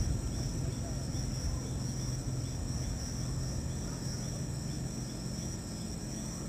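Night insects chirping steadily in a high pitch, over a steady low hum and rumble.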